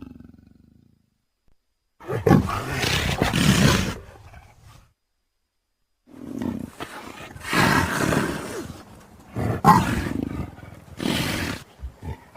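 Big cat roars, taken from leopard, tiger and lion recordings and cut together as one creature's voice. One roar of about three seconds starts two seconds in, and after a short gap a longer string of several roars follows.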